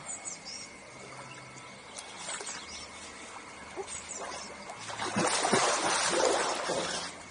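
Water splashing in an outdoor swimming pool for about two seconds near the end, with a few short bird chirps earlier.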